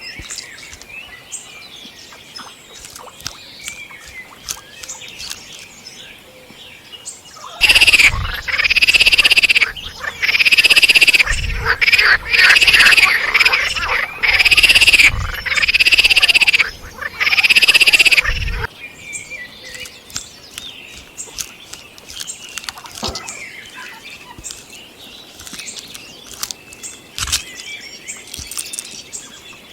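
Squirrel calling: a run of about seven loud calls, each about a second long, starting about 8 seconds in and stopping about 18 seconds in. Faint chirps and ticks sound before and after.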